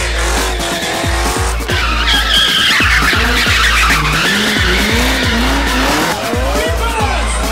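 BMW E30 drift car sliding sideways, its tyres squealing loudest from about two seconds in until near the end, while the engine's revs rise and fall. Electronic music with a pulsing bass plays over it.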